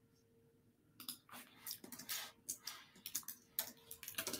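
Computer keyboard typing: quick, irregular keystroke clicks starting about a second in.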